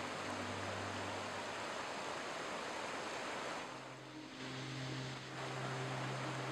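Steady rush of a fast-flowing forest stream, with a brief dip in level about four seconds in.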